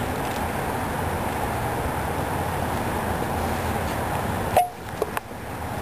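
Steady low rumbling noise on the camcorder's microphone. It cuts off abruptly with a click about four and a half seconds in and is much quieter after that.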